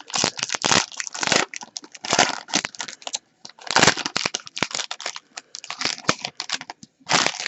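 Foil wrapper of a hockey card pack being torn open and crinkled by hand: irregular, rapid crackling throughout, with a few louder crinkles about two and four seconds in and just before the end.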